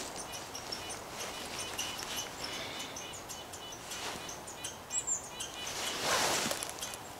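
Small birds chirping in the trees: short high notes repeated several times a second throughout. About six seconds in there is a louder rustle as gloved hands work the snare among the spruce branches.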